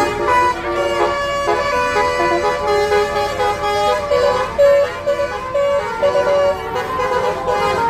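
Bus 'telolet basuri' multi-tone musical air horn playing a melody: a run of held horn notes stepping up and down in pitch.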